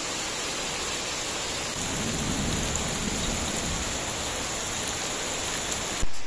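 Steady hiss of heavy rain falling, with a low rumble of thunder about two seconds in. Near the end there is a sharp click and the rain noise drops away abruptly.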